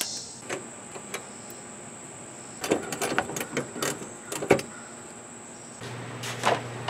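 Scattered clicks and knocks of hands and tools working on a truck's rubber mud flaps, over a faint steady high tone. Near the end a low hum comes in, and there is a knock as a mud flap is set down on a wooden workbench.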